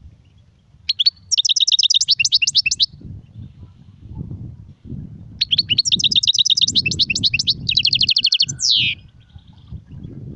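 European goldfinch singing: two phrases of rapid, high trilling notes, the first about a second in and lasting about two seconds, the second starting about five seconds in and running some three and a half seconds, ending with a quick falling note.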